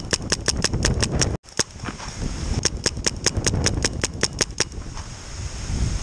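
Paintball marker firing rapidly, about eight sharp pops a second, in two long bursts with a pause between them. Near the end the shots stop and footsteps rustle through dry leaves.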